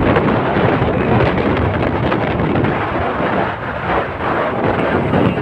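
Wind buffeting the microphone while riding, a loud, uneven rumbling rush with no clear tone.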